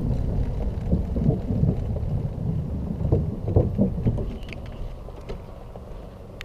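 Xiaomi M365 electric scooter rolling over rough paving: a low rumble of tyres and jolting, with frequent knocks and rattles as it bumps along. It dies down over the last second or two.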